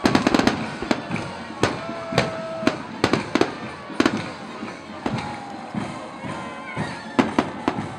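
Aerial fireworks shells bursting in quick succession: a rapid cluster of bangs at the start, then a bang about every half second.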